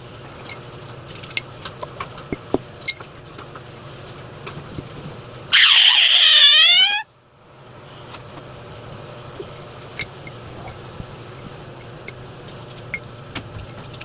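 Slime being mixed by hand: scattered small sticky clicks over a steady low hum. About five and a half seconds in, a loud high squeal glides down in pitch for about a second and a half and cuts off suddenly.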